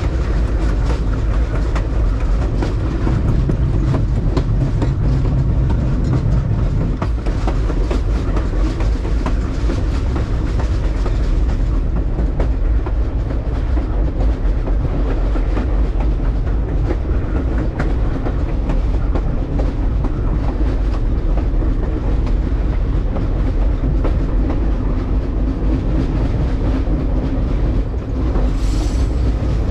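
Passenger train cars rolling along the track: a steady low rumble of steel wheels on rail with a running patter of clicks over the rail joints. A brief high-pitched sound cuts in near the end.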